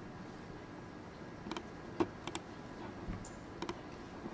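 A few sharp computer mouse clicks, several coming in quick pairs, over faint room noise as files are selected and a right-click menu is opened.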